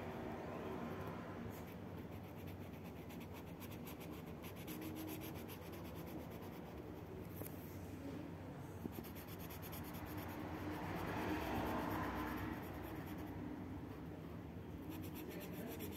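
Felt-tip marker rubbing back and forth on a colouring-book page as a red area is filled in: a steady scratchy rubbing that grows louder for a second or two about eleven seconds in.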